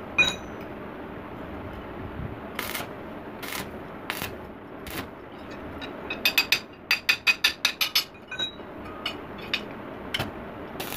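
Stick-welding arc striking in short crackling bursts as a steel sickle blade is tacked to its tang. A few bursts spaced about a second apart, then a quick run of about a dozen in under two seconds, then a few more spaced out.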